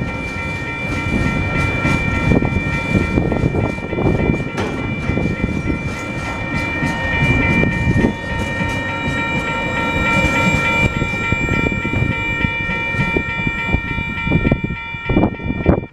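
Freight train of empty container flat wagons rolling past at close range: wheels rumbling and clicking over the rail joints, with a steady high-pitched ringing above that cuts off suddenly at the very end.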